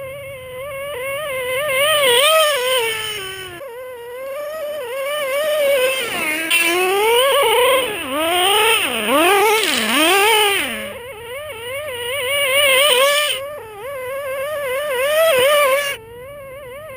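Small two-stroke nitro engine of a Traxxas Slayer RC truck screaming at high revs, its pitch wavering up and down with the throttle. In the middle it swoops down and back up several times as the truck passes close. The sound breaks off abruptly and resumes a few times.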